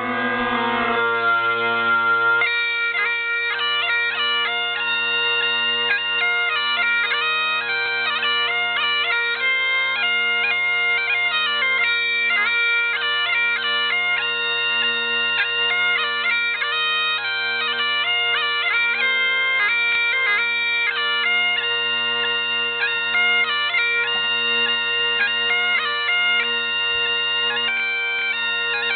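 Bagpipes playing a tune: the steady drones hold underneath while the chanter plays the melody above them.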